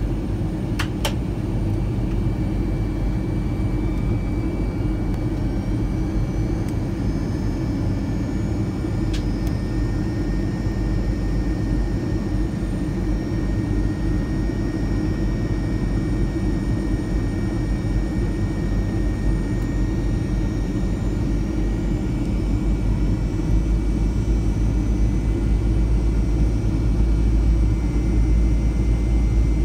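Steady cabin noise of a Boeing 737 jet on descent: a low engine and airflow rumble with a faint high whine over it, growing a little louder near the end.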